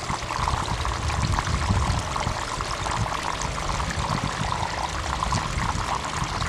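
Water running down a gold-prospecting sluice box and pouring off its end into a tub of foamy water: a steady splashing rush, with a low uneven rumble underneath.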